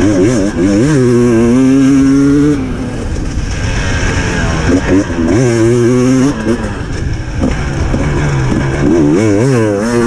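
300cc two-stroke enduro motorcycle engine revving hard under full throttle. Its pitch climbs and is held high, then drops as the throttle is eased, three times over, with wind rushing over the microphone.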